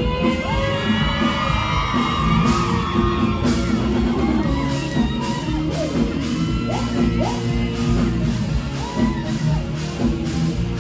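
Live band music with a singer's voice sliding between notes and shouts and whoops over it; a steady drum beat comes in about two seconds in.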